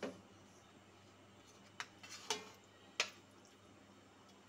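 A metal spoon clinking lightly against a plate and a cooking pot: four short, sharp clicks spaced about a second apart, as the spiced green masala is scraped off the plate into the pot.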